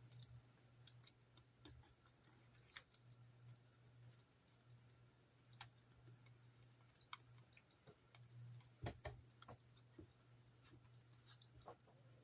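Near silence: faint, scattered clicks and light taps of plastic model parts, tape and a ruler being handled, a few slightly louder ones about nine seconds in, over a low steady hum.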